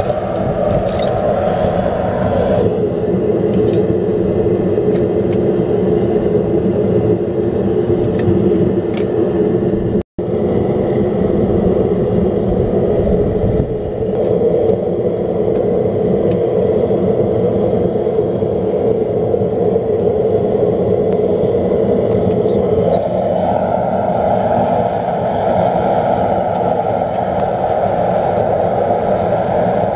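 Gas burner of a small backyard melting furnace firing with a steady rushing noise. Its tone shifts slightly about two and a half seconds in and again near the end, and it cuts out for an instant about ten seconds in.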